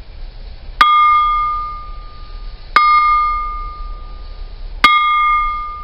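Thick-walled aluminum scuba-tank bell struck three times with a rubber caster, about two seconds apart. Each strike rings out on one clear main tone with a few higher overtones and fades away within a couple of seconds.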